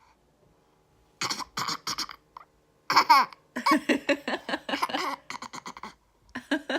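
A small child's mock sneezes, an imitation of how her mother sneezes: a few short breathy bursts, then a loud squealing burst about three seconds in, followed by a run of quick laughter.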